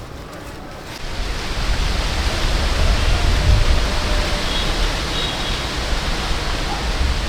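Steady rushing noise with a heavy low rumble, starting suddenly about a second in.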